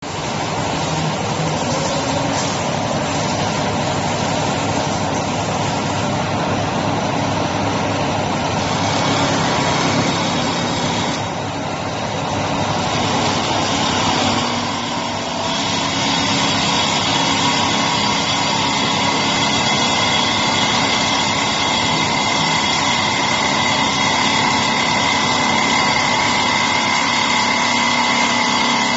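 Single-axis CNC wood turning lathe running, a steady machine whine over a rough noise, dipping briefly about eleven seconds in. In the second half a high whine becomes more prominent.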